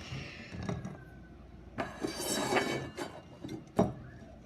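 A bowl being handled: a few light clinks, a scraping rub about two seconds in, and a sharp knock a little before the end.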